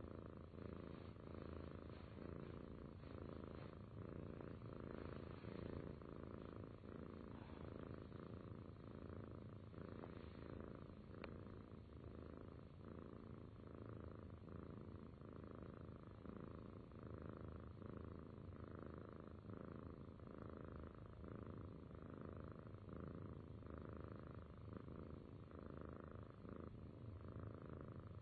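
Domestic cat purring steadily, the purr swelling and easing in a regular rhythm of about one breath a second.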